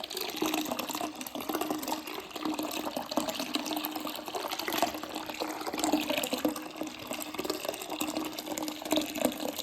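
Water running from a bathroom tap into a filling basin: a steady rush of water with a low, even hum under it.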